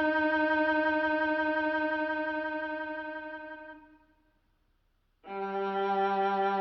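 Violin music played back through a Technics SC-C70 MK2 compact music system: a long held note fades away, then after about a second of silence a lower held note begins.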